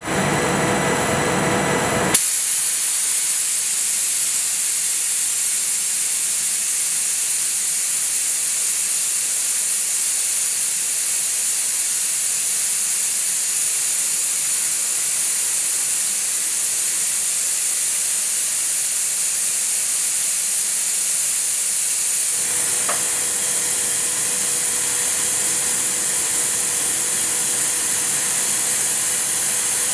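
Automatic lathe turning brass: a steady high hiss of the machine at work. About 22 seconds in the sound shifts and a faint steady tone joins the hiss as the grooving cut takes over.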